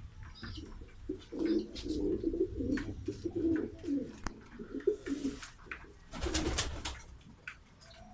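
Pigeons cooing in repeated low, bubbling phrases, with scattered light clicks and a short rustling burst about six seconds in.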